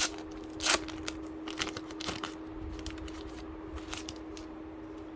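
A foil flow pack of Topps Match Attax trading cards being torn open, with crinkling of the wrapper. The loudest rip comes just under a second in, then several shorter rustles, thinning out over the second half.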